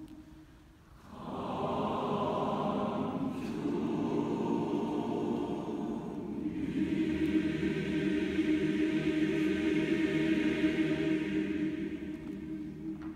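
Large mixed choir singing. After a short hush it comes in about a second in with long held chords. Upper voices enter strongly about halfway through, and the sound tapers off near the end.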